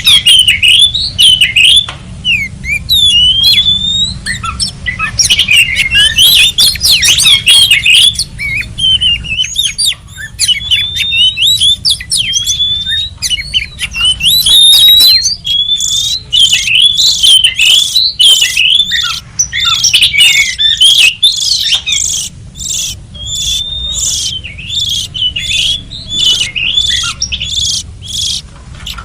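Oriental magpie-robin (kacer) singing continuously: loud, varied whistled phrases of sliding notes mixed with sharp clicks, the clicks coming thick and regular in the second half, over a steady low hum.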